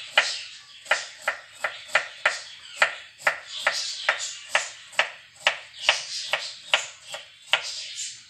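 Knife slicing a peeled cucumber into rounds on a wooden chopping board: a steady run of sharp taps as the blade goes through and hits the board, about two to three a second.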